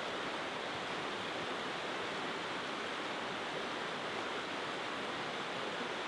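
Steady rushing of a river's open water flowing over and between rocks.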